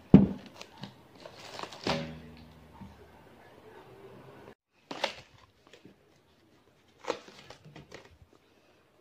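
Plastic film wrapping crinkling and rustling as a heavy pot is handled and unwrapped, with a sharp thump just after the start and a few smaller knocks and clicks later.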